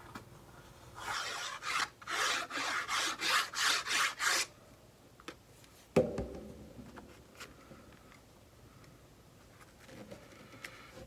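About eight quick rubbing strokes of fingers across paper, spreading liquid glue over its back, then a single sharp knock about six seconds in.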